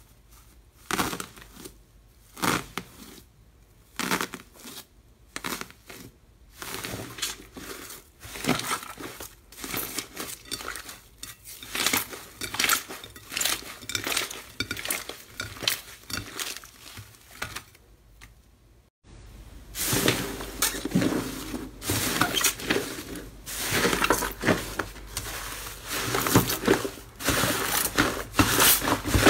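Hands pressing slime through a sheet of foil, giving sharp crinkling crackles about a second apart, then steady crinkly squishing as the slime is kneaded with the torn foil. About two-thirds of the way in the sound changes to thick yellow slime being pulled and squeezed in a glass bowl: dense wet squishing over a faint low hum.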